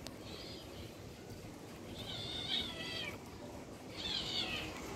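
Kitten meowing three times in high-pitched cries, a faint one at the start and two louder ones later, the last falling in pitch: distress calls of a kitten caught in shrub branches.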